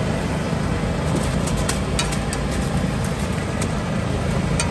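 A steady low, engine-like drone of a busy street-food stall, with a few sharp clicks scattered through it, typical of a metal spatula striking a flat iron tawa.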